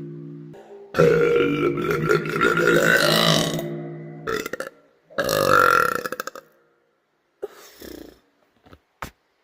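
A woman belching: a long, drawn-out burp of about three seconds starting a second in, then a shorter burp a little past the middle.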